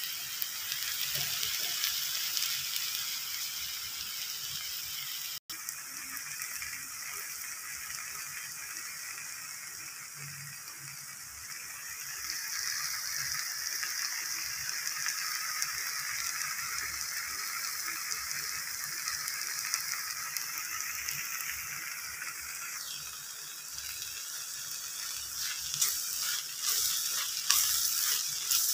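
Spinach, split dhal and dried chillies sizzling steadily in a frying pan. In the last few seconds a spatula scrapes the pan as it stirs them.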